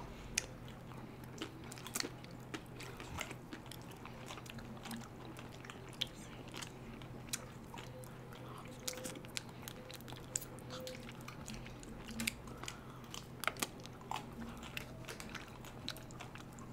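Close-up mouth sounds of people biting and chewing chocolate-coated ice cream bars: scattered small crunches and wet clicks, several people at once.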